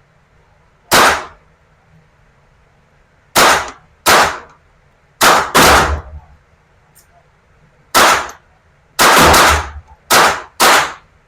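A .22 LR GSG rifle firing about ten single shots at an uneven pace, some of them close together, each a sharp crack with a short echo.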